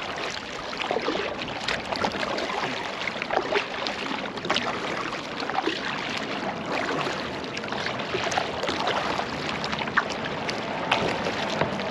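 Water splashing and trickling around a kayak as it is paddled along, with small irregular splashes and drips.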